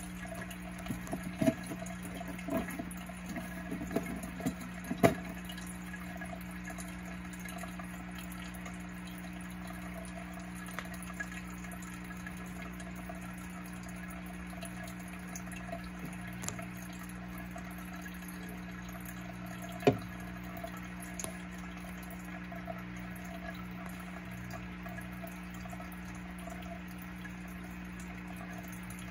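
Steady hum and trickle of a small water pump in the frog's tank. Over it, a numagaeru rice frog (Fejervarya kawamurai) gives a run of short, sharp calls in the first five seconds and one more loud call about twenty seconds in.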